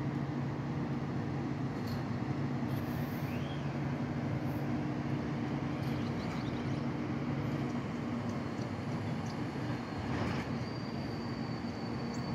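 Diesel engine of a Freightliner SD garbage truck with a New Way body running steadily out of sight. Its engine note weakens after about eight seconds, and a faint thin high tone comes in near the end.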